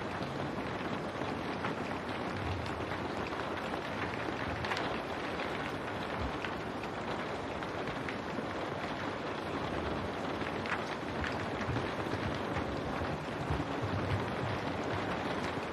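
Steady heavy rain on window glass: a dense, even hiss with scattered drop ticks, a few of them louder.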